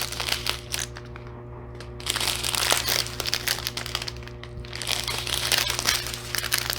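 Small plastic packets of diamond painting drills crinkling as they are handled, in irregular runs of small crackles with two quieter pauses.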